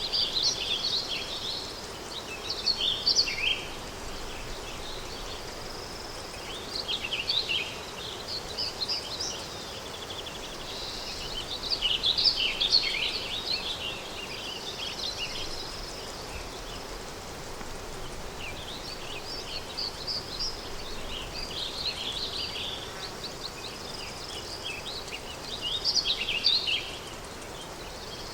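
Countryside daytime ambience: songbirds singing in short bursts of quick, high chirping phrases every few seconds over a steady, soft wind hiss.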